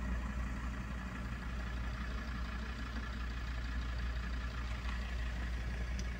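An engine idling: a steady, even low hum that holds without change, heard from inside a car.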